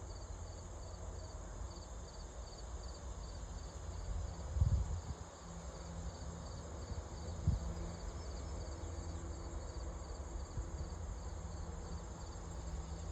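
Outdoor ambience of insects chirping in a steady pulsed rhythm, about three high chirps a second, over a low rumble. Two dull thumps sound about halfway through.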